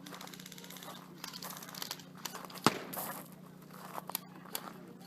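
Close rustling and crinkling with scattered short clicks, and one sharp knock about halfway through, over a steady low hum.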